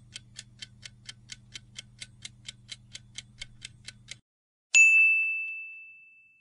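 Quiz countdown-timer sound effect: a clock ticking about four times a second over a low hum, which stops about four seconds in. Half a second later comes a single bright ding, a chime that rings out and fades, marking the reveal of the correct answer.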